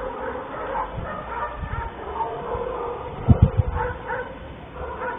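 Dogs barking and yelping repeatedly in short calls, with a cluster of heavy low thumps about two-thirds of the way in.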